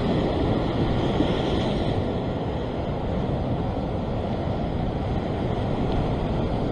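Ocean surf washing steadily against a rock shelf, with wind on the microphone.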